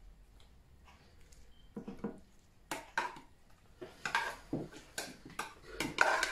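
Kitchen utensils and dishes clinking and knocking in short, scattered strokes as vegetables are served onto a plate. The strokes come closer together and louder in the second half.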